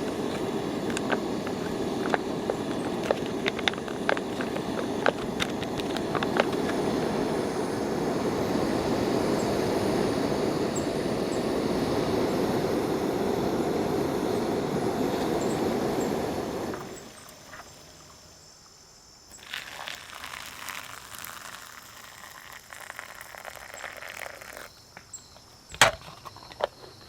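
Steady heavy rain, a dense hiss with sharp ticks of single drops hitting, which cuts off about 17 seconds in. A much quieter stretch of scattered light crackles follows, with one sharp click near the end.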